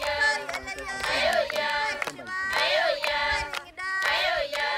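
A group of Maasai women singing together in high voices, in short phrases that rise and fall and repeat, with sharp hand claps.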